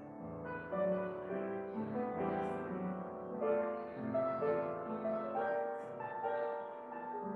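Upright piano played solo, a piece of chords and melody notes that ring on and overlap.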